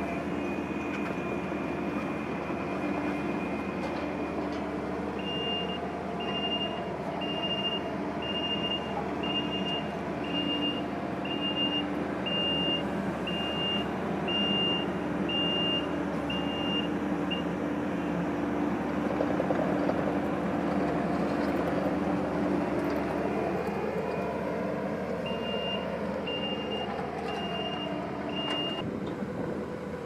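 Kubota compact track loader running steadily while dozing dirt, its backup alarm beeping about once a second in two stretches of several seconds as it reverses. The engine pitch rises and falls for a few seconds past the middle.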